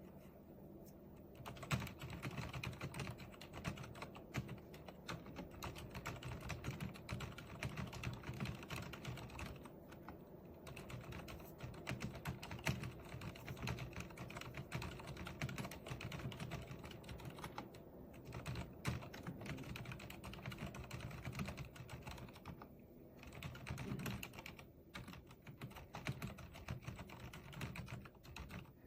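Steady, fast typing on a Cherry MX 1.1 tenkeyless mechanical keyboard with Cherry MX Red linear switches: a dense run of key-press clacks, starting a second or so in and broken by a few short pauses.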